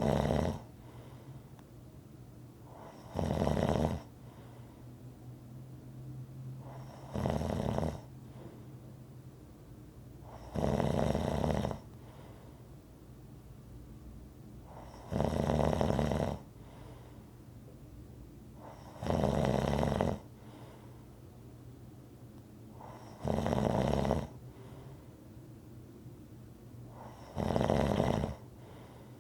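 Rhythmic snoring: eight loud snores, one about every four seconds, each lasting about a second, with faint breathing between them.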